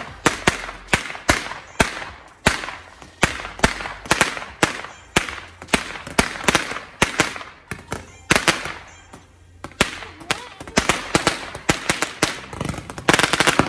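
A ground-launched multi-shot firework (a Diwali 'shot') firing a rapid, irregular series of sharp bangs, a few each second, with a short lull about nine seconds in and a fast cluster of bangs near the end.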